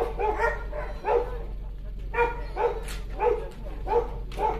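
Boar-hunting dog barking over and over, a bark about every half second.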